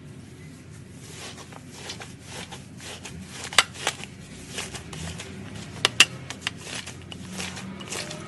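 Slime being handled and squeezed by hand: a steady wet, crackly squishing with sharp popping clicks, the loudest about three and a half and six seconds in.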